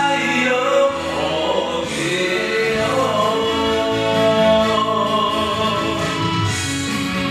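Taiwanese Hokkien ballad playing: sung vocals held on long notes over the backing music, at the end of a verse line.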